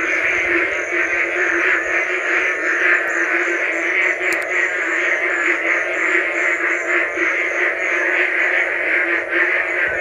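Dense chorus of frogs calling: many overlapping, rapidly pulsed calls forming a steady din.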